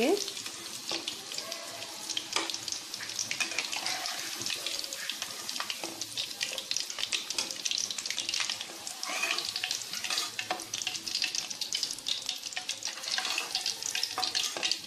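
Mutton koftas deep-frying in hot oil, a steady crackling sizzle. Now and then a perforated metal skimmer clinks and scrapes against the pan as the koftas are lifted out.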